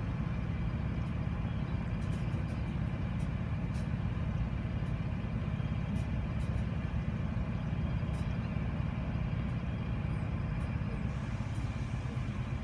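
CSX diesel freight locomotives moving slowly past with an intermodal train: a steady low engine rumble with faint clicks.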